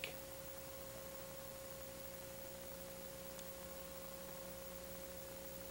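Faint steady hum with an even hiss behind it and nothing else: no working sounds from the scene.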